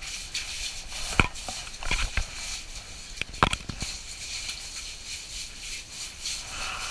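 Several sharp knocks and taps, the loudest about a second in and about three and a half seconds in, over a steady hiss, as a hooked fish is pulled up by hand through an ice-fishing hole.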